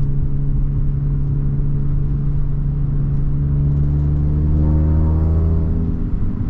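Audi A3's tuned EA888 turbocharged four-cylinder running at idle while it warms up after its multi-port fuel injectors were replaced. It runs evenly. From about halfway through the engine speed climbs slowly, then drops back near the end.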